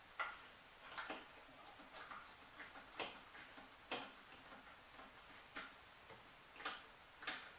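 Faint, irregular small clicks and taps of plastic parts being handled, about one a second, as the LED video light's plastic housing is put back together.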